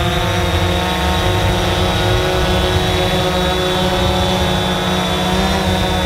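DJI Phantom 4 Pro quadcopter hovering close by, its four propellers making a loud, steady high-pitched buzz, the pitch shifting slightly about five seconds in as the motors adjust.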